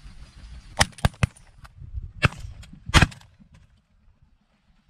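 A volley of shotgun shots from several hunters firing at a passing flock of ducks: about five sharp reports in three seconds, the loudest about a second in and another near three seconds.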